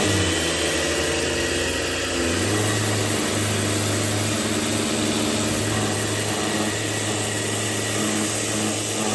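Electric pressure washer running steadily, its motor hum shifting in pitch about two seconds in, over the constant hiss of the water spray, while it cleans a day bed.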